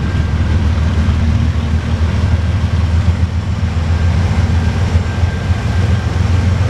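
Freight train with autorack cars rolling past, a steady low rumble of diesel locomotive engines and moving cars.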